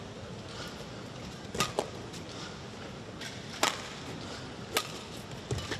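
Badminton rally: rackets striking the shuttlecock with a few sharp, short cracks about a second or more apart, the first about one and a half seconds in, over steady hall noise.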